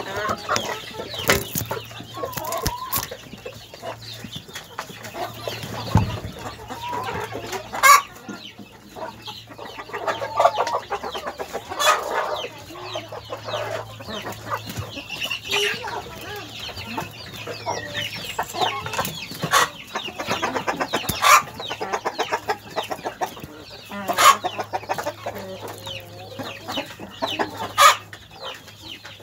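Flock of domestic hens clucking and calling in short, irregular bursts, with sharp taps every few seconds.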